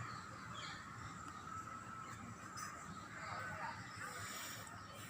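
Outdoor birdsong: several short, scattered bird calls over a steady background hiss.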